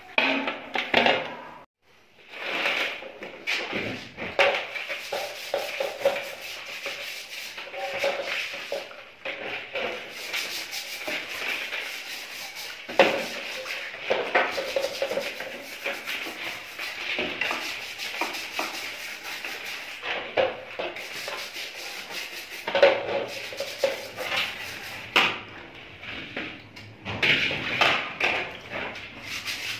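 Rough rubbing and scraping as a metal motorcycle mudguard is scrubbed by hand in a basin of water, with many short sharp strokes and a brief break about two seconds in.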